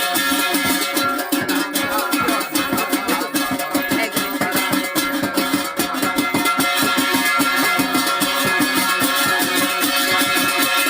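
Instrumental Garhwali folk music: sustained tones over a fast, even beat, with no singing heard.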